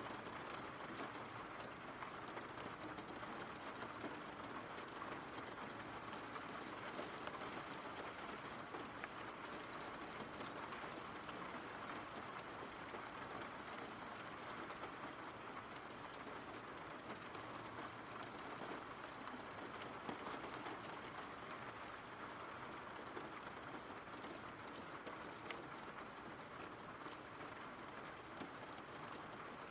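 Rain ambience: steady, faint rain falling, an even hiss with the odd sharper drop tick.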